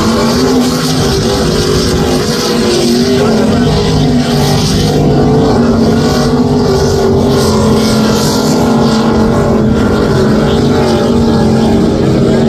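Offshore racing powerboat's engines running at high speed, a loud steady drone whose pitch wavers slightly, with a hiss over it.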